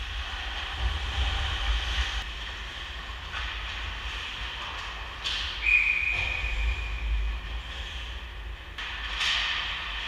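Ice hockey rink sound: skate blades scraping and carving the ice over a low rumble. About six seconds in, a referee's whistle sounds once for about a second and a half, stopping play, and near the end a skate scrapes sharply as a player stops.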